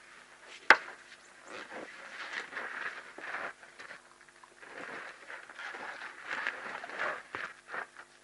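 Two sparring elephants: a single sharp clack, as of tusks striking, just under a second in, then irregular bouts of crunching and scuffing as they shove and their feet shift on gravelly ground.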